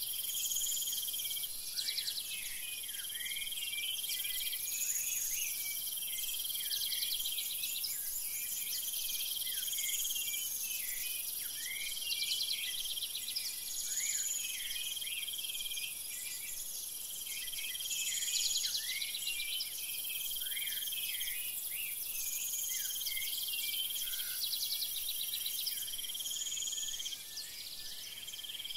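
Insect and bird chorus: a steady high insect hiss with chirping calls and short whistles, the same calls coming back every two to three seconds.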